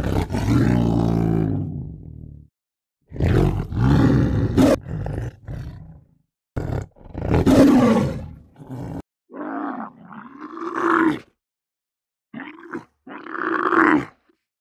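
A tiger roaring: three long, loud roars one after another. In the last few seconds come two shorter, rising-and-falling calls of a dromedary camel.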